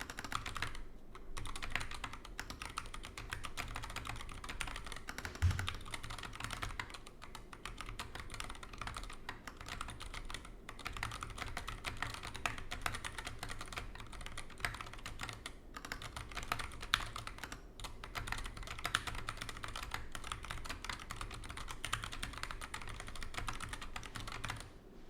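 Typing on a GK61X 60% hot-swap mechanical keyboard fitted with 67g Zealios V2 tactile switches: a steady stream of key clacks broken by short pauses, with one deeper, louder thump about five seconds in.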